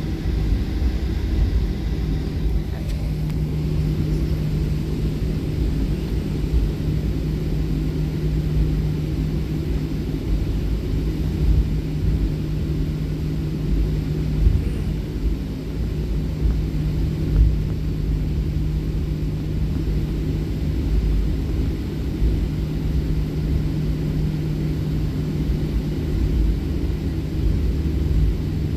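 Cabin noise of a Southwest Boeing 737 heard from a window seat: the jet engines' steady low rumble with a constant hum.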